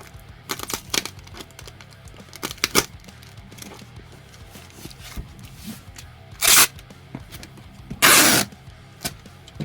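Packing sounds while sealing a shipping box: a few sharp handling clicks, then two loud rasping strips of packing tape pulled off the roll, the second longer than the first.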